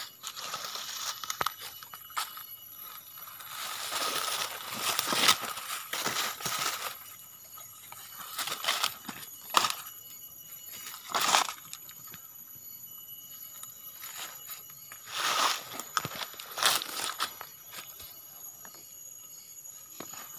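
Irregular rustling and crackling, as of footsteps in dry leaf litter and a handheld phone being moved, loudest in several bursts through the middle. Faint steady high-pitched ringing tones run underneath.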